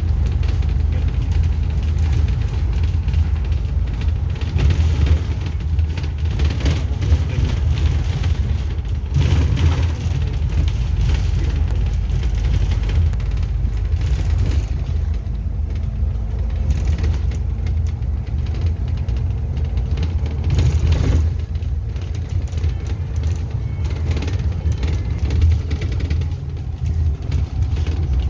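Bus engine and tyres giving a loud, steady low rumble while driving along the road, with music playing at the same time.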